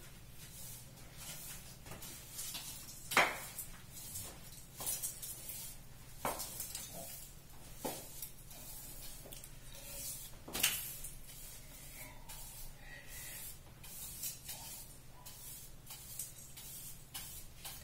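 Broom sweeping a tiled kitchen floor: scattered brushing swishes with a few sharp knocks, the loudest about three seconds in and again about ten and a half seconds in.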